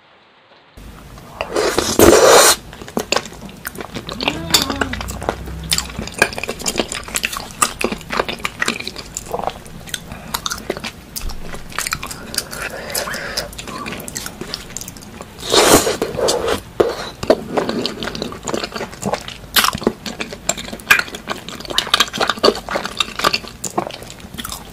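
Close-miked eating sounds: chewing and biting, with spoon and fork clicking and clinking on plates and bowls. The sounds start after a moment of silence, and there are two louder bursts of noise, one about two seconds in and one just past halfway.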